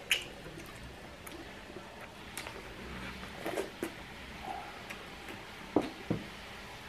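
Eating with the hands: wet chewing and mouth sounds, with scattered sharp clicks and taps from fingers and dishes. The loudest click comes just after the start, and two come close together near the end.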